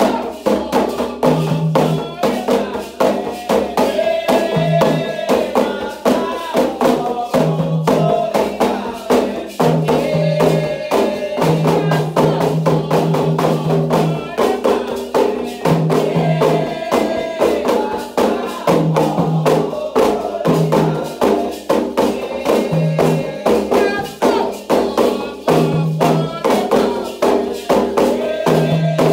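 Candomblé sacred music: atabaque hand drums and percussion playing a fast, dense rhythm under sung chants.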